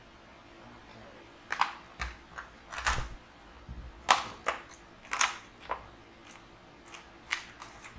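Plastic packaging of a USB cable being handled: a string of irregular sharp clicks and crackles, about nine in all.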